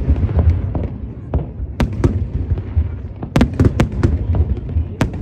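Fireworks display: sharp bangs of shells bursting over a continuous low rumble, with a quick cluster of four or five bangs about three and a half seconds in.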